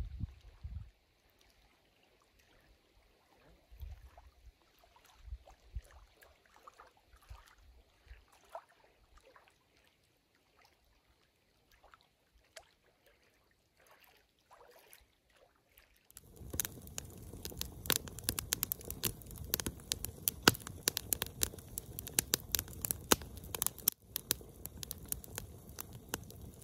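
Faint small waves lapping at a lakeshore, with a few low bumps of wind on the microphone. About 16 s in, it gives way to a wood campfire crackling and popping, dense and irregular, much louder than the shore sounds.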